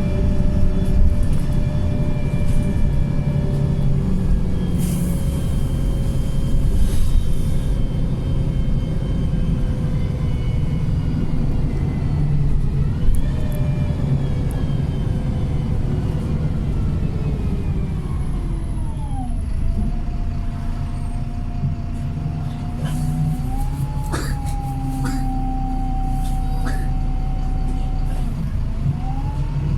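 Optare Pulsar single-deck bus heard from on board: engine and drivetrain rumble with a whining tone that falls as the bus slows about halfway through, then steadies and shifts in pitch a few times as it pulls away again.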